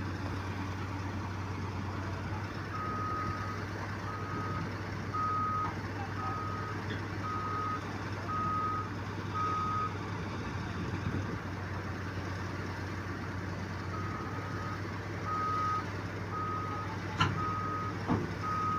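Backup alarm on heavy equipment beeping about once a second, pausing for a few seconds midway before starting again, over the steady low running of a large diesel engine. A single sharp click sounds near the end.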